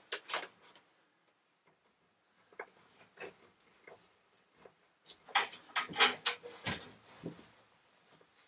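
Scattered light clicks and scrapes, then a louder flurry of rubbing and knocking about five seconds in, as an electrical cable is pulled through drilled holes in a shed's wooden framing.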